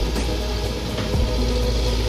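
Background music over the steady running of an excavator's diesel engine, with a few short clicks.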